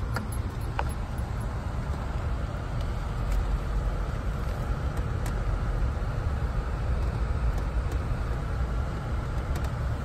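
Vehicle driving slowly along a dirt road, heard from inside the cabin: a steady low rumble of engine and tyres, with a few faint light rattles.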